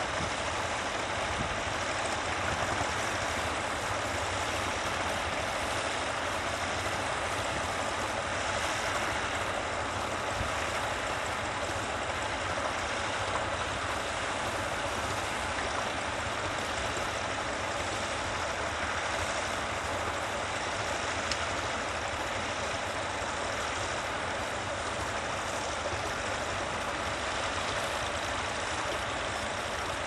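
Vintage tractor engine running steadily under load while it pulls a mounted plough, mixed with a steady hiss.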